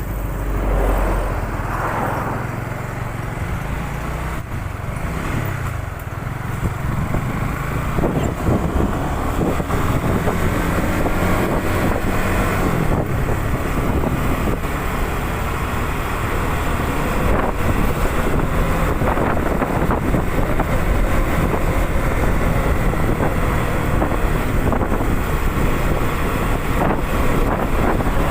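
Honda CB150R's single-cylinder engine under way on the road. Its pitch rises and falls in the first several seconds as it pulls through the gears, then holds steadier at cruising speed.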